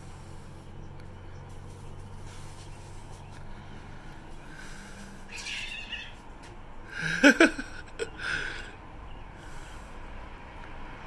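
Two cats fighting: a low growl at first, then yowling, and a loud rising screech about seven seconds in, followed by more short yowls.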